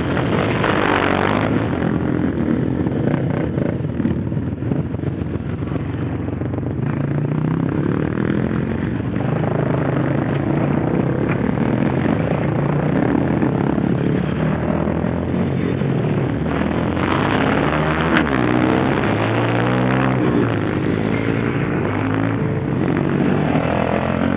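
A group of dirt bike engines, with quads among them, running and revving as the machines ride past close by one after another. The pitch rises and falls as each one goes by, most noticeably in the second half.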